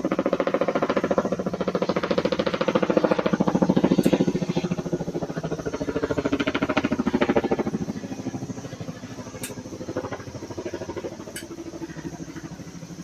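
Helicopter flying over, its rotor beating rapidly, loudest a few seconds in and then fading away. A lot of noise.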